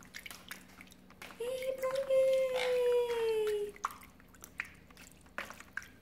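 Water splashing and dripping in a shallow plastic bath dish as a bathing cockatiel flaps in it and a hand splashes water onto her: many small splashes and drips. Partway through, a voice holds one long note for about two seconds, sliding slightly down in pitch.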